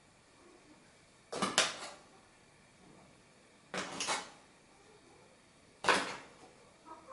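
A spoon scooping wheat flour out of a flour bag into a measuring cup: three short rustling, scraping scoops about two seconds apart.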